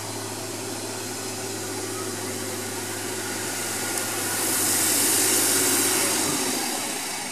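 Diesel engine of a rail works vehicle running as it comes along the tramway track. The sound grows louder, is loudest about five seconds in, then eases.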